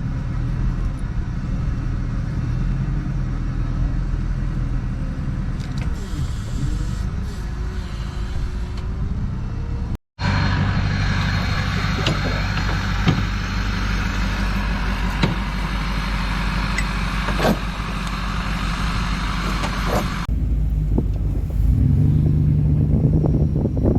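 Pickup truck towing a trailer on the road: a steady engine and road rumble. It breaks off abruptly about ten seconds in and picks up again, and grows louder near the end.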